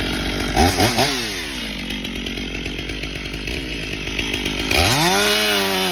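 Two-stroke chainsaw engine blipping its throttle in quick revs about half a second in, then running steadily. Near the end it revs sharply up to full throttle and holds a high, steady whine.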